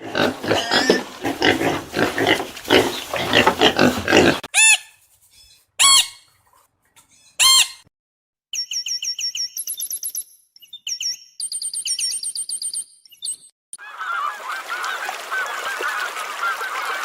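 Birds calling in a string of short clips: a dense flock chorus, then three single loud calls, then a run of rapid high-pitched chirps, then a dense flock chorus again.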